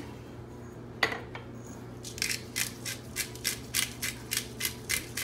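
Salt and pepper shaken from a shaker into a plastic mixing bowl: a single sharp click about a second in, then a quick, even rattle of about four shakes a second.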